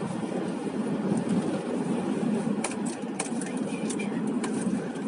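Car heard from inside the cabin: a steady low rumble, with a few short sharp clicks in the second half.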